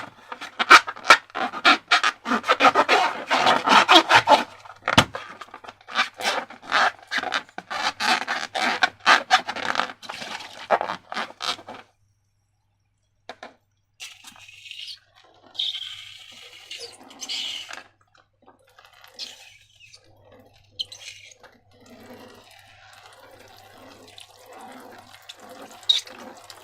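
Sticky slime being squished and worked by hand, a dense run of wet squelching clicks, then after a short silence about twelve seconds in, quieter, sparser squishes.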